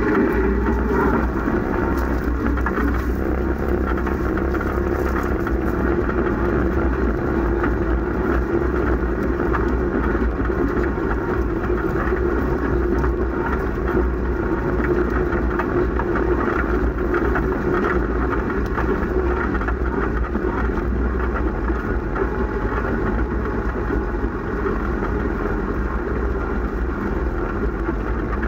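Willys MB jeep's four-cylinder flathead engine running steadily under load as the jeep is driven up an off-road hill, with a constant noisy rush over it.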